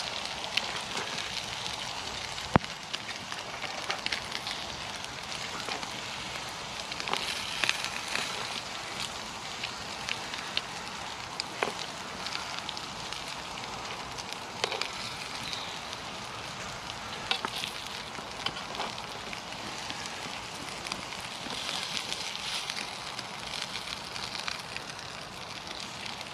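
Chipolata sausages frying in a pan: a steady crackling sizzle with scattered sharp pops.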